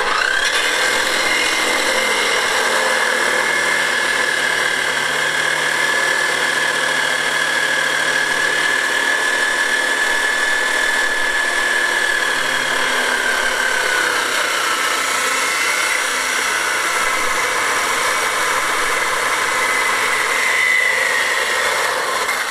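Electric chop saw running and cutting through a metal tube at an angle. It starts abruptly, and its high whine sags in pitch under load through the middle of the cut. The whine picks up again near the end, just before the saw stops.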